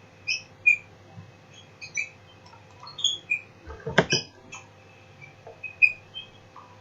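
Small birds chirping, many short high chirps at irregular intervals, over a faint steady low hum. A single louder knock comes about four seconds in.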